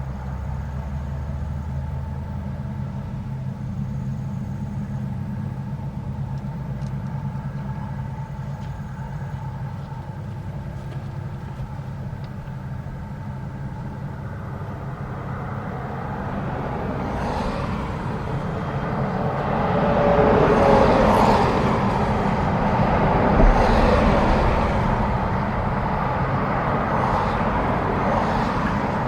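Rostselmash Vector 420 combine harvester running in the field: a steady low engine hum that grows louder and rougher a little past halfway, loudest about two-thirds of the way through, with a heavy mechanical clatter on top.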